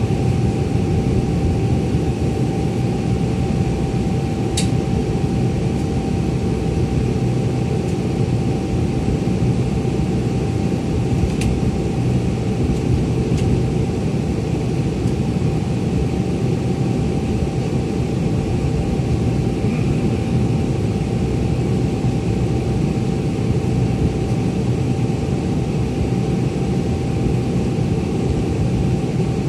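Inside a city bus in slow traffic: its engine idles and pulls the bus forward at a crawl, giving a steady low hum with a constant thin tone over it. A few sharp clicks stand out, about five, eleven and thirteen seconds in.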